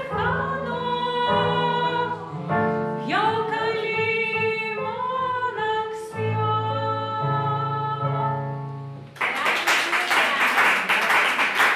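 A woman singing with digital piano accompaniment, holding out the last phrases over sustained low piano notes. About nine seconds in the song ends and the audience claps.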